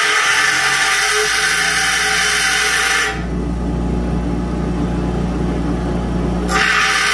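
Bench grinder running while a steel knife blade is ground against its wheel to take it down to thickness, a steady grinding hiss. About three seconds in the blade comes off the wheel and only the grinder motor's hum is heard; grinding starts again near the end.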